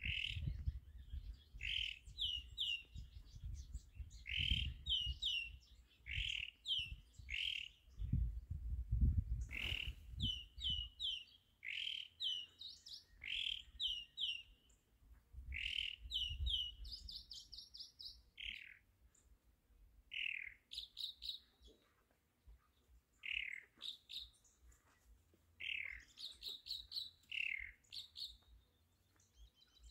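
Chalk-browed mockingbird singing: a long run of short, varied phrases, each note often repeated two to four times, coming every second or so. A low rumble runs under the song for about the first ten seconds.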